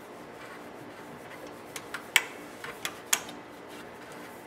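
A few light clicks and taps from hands and tools working on a cassette deck, the two sharpest about two and three seconds in.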